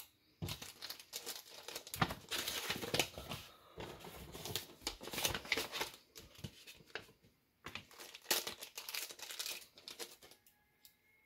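Crinkling of a small clear plastic bag and a paper coin envelope being handled as a pocket watch is taken out and unwrapped, in two long bouts of crackling with a short pause between them.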